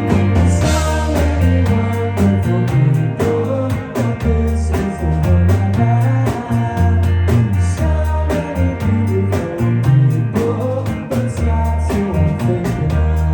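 Live rock band playing a song: guitars over a steady beat.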